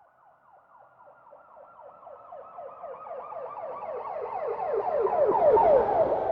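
Police car siren in a fast yelp, rapid falling sweeps about five a second. It grows steadily louder as the vehicle approaches and passes close by near the end, when a low rumble of the vehicle comes in.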